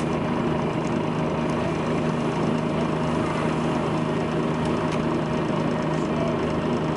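Volvo B10BLE bus's diesel engine idling steadily, with an even low hum and no revving.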